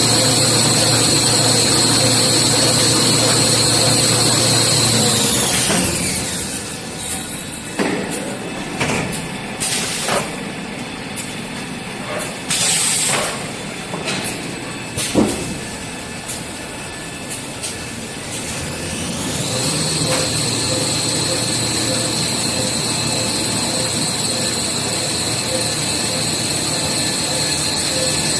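A 1350 mm gluing-lamination toilet paper machine running with a steady high whine and hum. About five seconds in it winds down, its pitch sliding away. While it is slowed there are scattered clicks and knocks. About nineteen seconds in it spins back up to the same steady whine.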